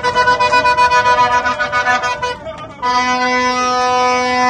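Plastic vuvuzela horn being blown: a run of rapid, pulsing blasts, then after a short break one long steady blast from about three seconds in.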